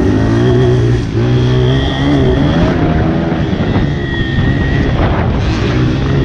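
Honda CRF80 pit bike's small four-stroke single-cylinder engine at racing throttle, revving up and dropping back several times through the lap.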